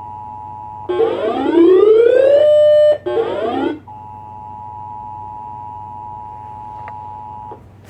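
Emergency Alert System attention signal, a steady two-pitch tone. About a second in it is broken by a loud siren that rises in pitch, holds briefly and cuts off, then rises once more. The steady two-tone signal comes back about four seconds in and stops just before the end.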